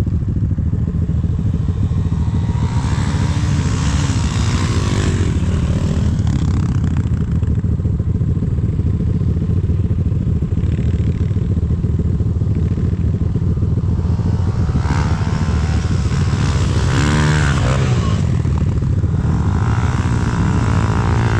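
Enduro dirt bike engine running under load, its revs rising and falling as the bike is ridden over rough ground.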